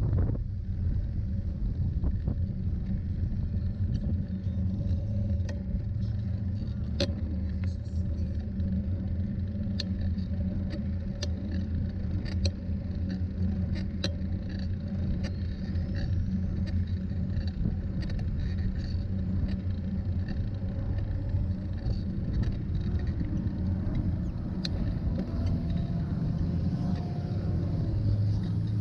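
TerraTrike recumbent tricycle rolling over an asphalt path: a steady low tyre-and-frame rumble with scattered sharp clicks, and car traffic on the road alongside.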